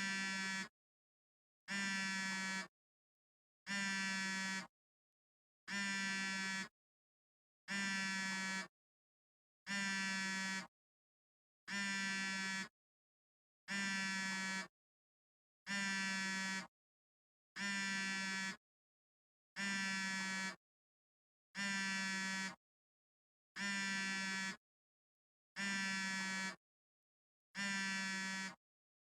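Smartphone vibrating: short buzzes, each under a second long, repeating steadily every two seconds with silence between them, a steady low hum with a bright overtone-rich edge.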